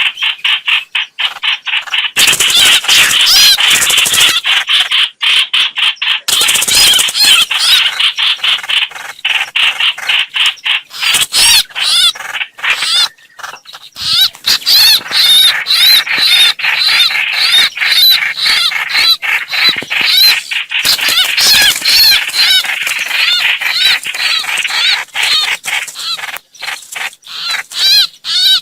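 Recorded calls of the bird known in Vietnamese as 'hoạch hoạch', played as a trapping lure: fast, chattering strings of short high notes, repeated many times a second with brief breaks.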